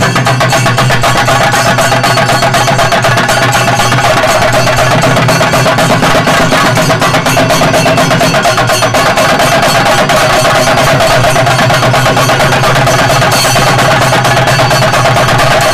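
Kerala temple percussion for a Thirayattam: chenda drums played in rapid, continuous strokes with cymbals, over a steady held tone. The playing is loud and even throughout.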